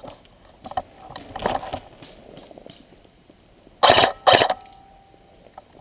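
Two short, loud coughs about half a second apart, about four seconds in, amid faint rustling and clicking of gear.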